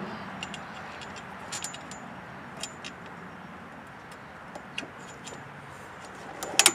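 Small metal clicks and ticks from the auger control cable's hooked end being fitted into the control arm on a Yard Machines snowblower's handlebar. A quick run of louder clicks comes near the end, over a faint steady background hiss.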